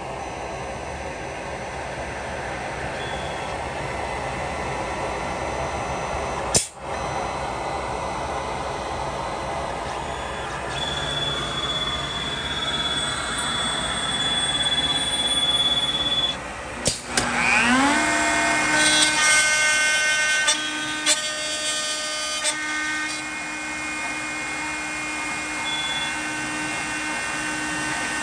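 CNC router: the dust collector runs as a steady rush. About 17 seconds in, the router's spindle spins up with a rising whine and then runs at a steady high whine over the collector.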